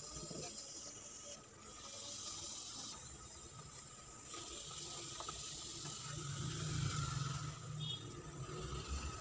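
Soup in a pot sloshing and splashing as a silicone spatula stirs it.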